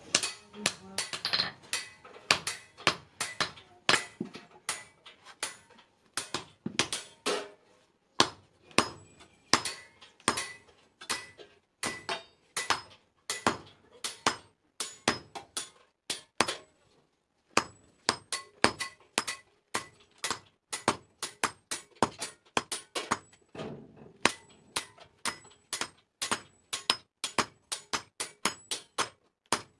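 Hammer blows on a red-hot iron bar on an anvil, about two a second, each with a short metallic ring, pausing briefly twice as the bar is forged flat.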